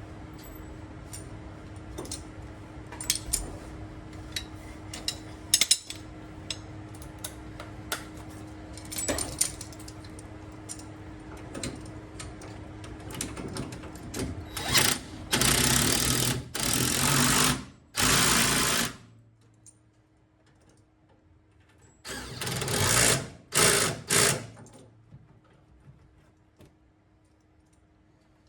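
Tools clicking and knocking on metal parts over a steady hum, then a power tool run in several loud bursts of a second or two each: three in a row about halfway through and two more a few seconds later.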